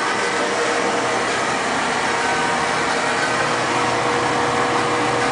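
Oil burner firing steadily: an even, continuous roar with a steady hum. The burner is fuel-starved, its intake lines clogged by tank sediment stirred up by a new oil delivery.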